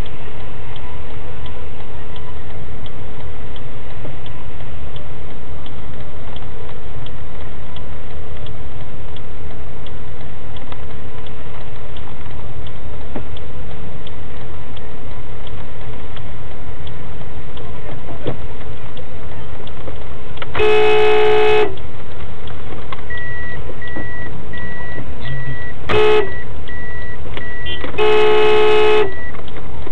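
Car horn honking three times in the last third: a blast of about a second, a short tap, then another blast of about a second, over the steady low rumble of a car cabin. A high beep repeats about once a second through the final seconds.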